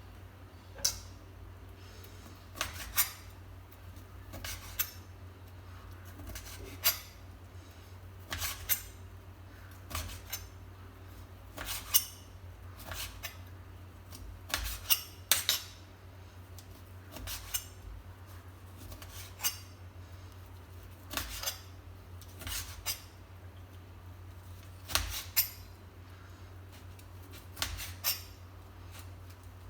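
Boiled pig ear being sliced with a kitchen knife: irregular sharp clicks and clinks of the blade every second or two, over a steady low hum.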